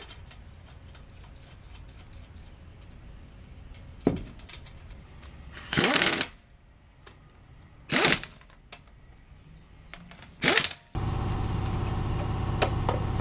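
Pneumatic impact wrench tightening the lug nuts on a car's front wheel in four short bursts, the second the longest. A steady hum starts abruptly near the end.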